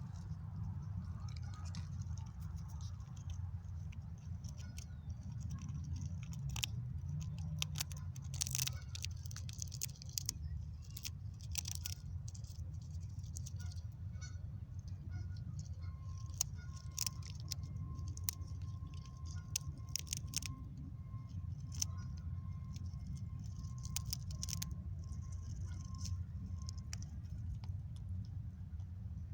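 A ground squirrel cracking peanuts with its teeth: irregular sharp clicks and crunches, bunched in places, over a steady low rumble.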